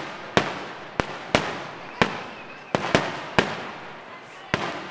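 Aerial fireworks shells bursting overhead: about eight sharp bangs at uneven intervals, each trailing off in a rolling echo.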